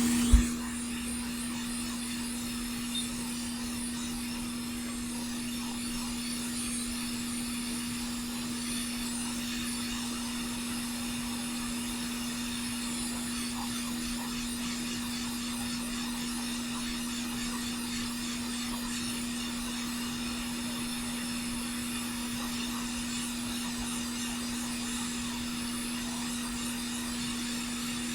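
Hot air rework station blowing steadily, a constant hum with an airy hiss, as it heats the solder joints of a through-hole HDMI socket to unsolder it. A sharp click right at the start.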